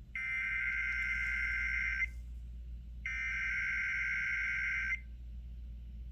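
Emergency Alert System SAME header: two bursts of two-tone digital data, each about two seconds long and a second apart, part of the three repeated header bursts that code the alert before its attention signal.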